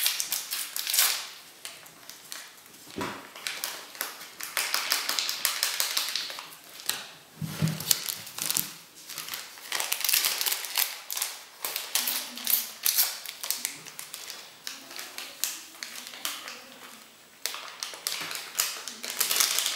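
Quick light clicks, taps and rustles of hand work with a paper sachet of baking powder and a spoon working it into a bowl of flour.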